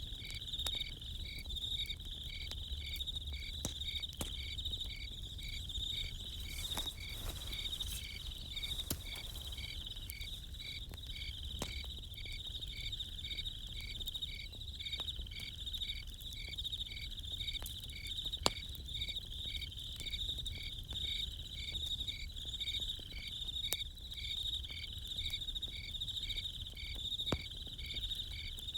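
Crickets chirping in a steady chorus, one of them pulsing about twice a second, with scattered small pops and crackles from a campfire and one sharper pop midway.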